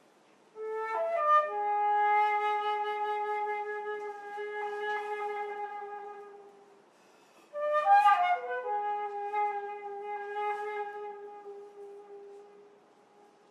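Solo flute playing two phrases: each opens with a quick flurry of notes that settles onto a long held low note and fades away. The first begins about half a second in, the second about seven and a half seconds in.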